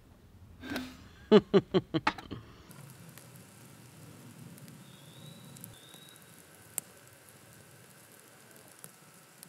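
A man gulping beer from a glass bottle, a quick run of about five loud gulps. Then a wood campfire crackles faintly, with one sharp pop about seven seconds in.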